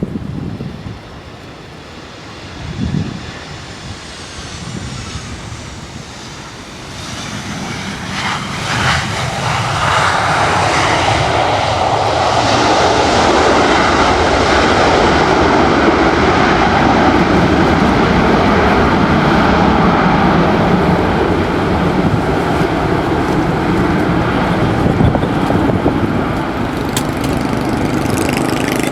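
Boeing 737-800 jet engines, CFM56-7B turbofans, heard as a loud, steady rush of noise that builds over the first ten seconds or so and then holds.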